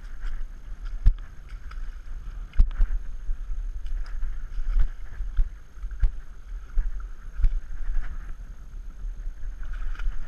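Boat on a trailer towed over a rough, seaweed-covered slipway, jolting and knocking irregularly over a steady low rumble.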